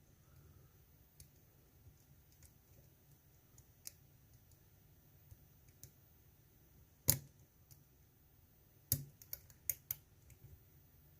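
Metal lock pick clicking against the pins inside a GEGE euro cylinder during single-pin picking: faint scattered ticks, a sharper click about seven seconds in, and a quick cluster of clicks about two seconds later.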